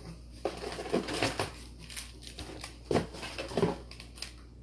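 Packaging being rummaged and handled: irregular rustles and light knocks, the loudest about a second in and again around three seconds in.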